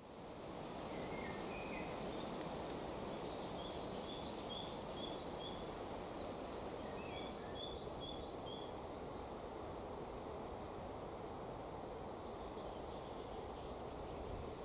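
Steady outdoor forest background noise with a songbird singing twice, each phrase a quick run of about five repeated two-note calls alternating between a higher and a lower pitch, plus a few scattered short high bird notes.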